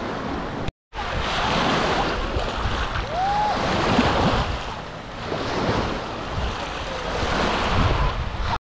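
Small sea waves washing onto a sandy shore, the surf swelling and easing every second or two, with wind buffeting the microphone.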